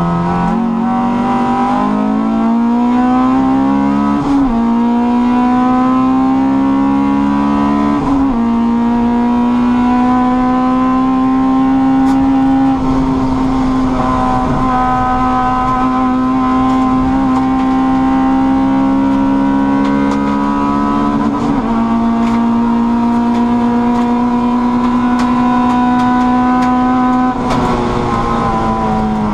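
Honda Cup race car's engine heard from inside the cabin at full throttle, revs climbing with gear changes about four and eight seconds in, then held high and nearly steady for most of the time before dropping near the end as the driver lifts off.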